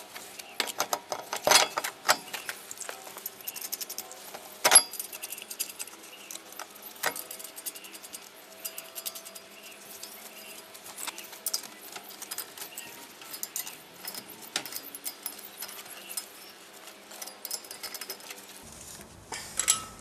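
Steel wheel of a 2006 Toyota Corolla being hung back on the hub and its wheel nuts threaded onto the studs by hand: irregular metallic clicks and clinks, with louder knocks about one and a half and five seconds in.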